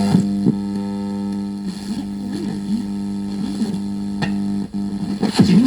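Radio broadcast music, a held guitar-like note with a few sliding notes over it, coming from the Sony CFS-1110S cassette radio's speaker as it plays a station.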